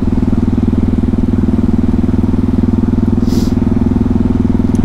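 Yamaha MT-03 660's single-cylinder engine running at a steady engine speed under way, its exhaust fitted with the baffle. A short hiss comes about three seconds in.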